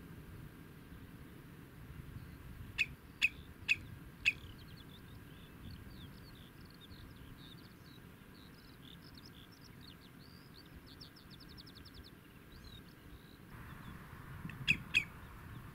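Common redshank calling: four loud, sharp call notes about three seconds in and two more near the end. Between them runs fainter, quick chirping birdsong that speeds up into a rapid, even trill.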